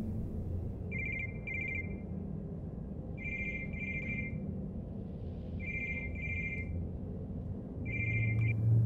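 Home telephone ringing in pairs of rings, four times, about every two and a half seconds, over a low steady hum.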